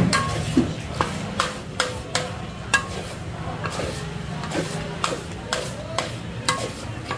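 A metal spatula clanks and scrapes against a large iron wok as fried kuey teow is tossed, about two ringing strikes a second, with frying sizzle over a steady low rumble underneath.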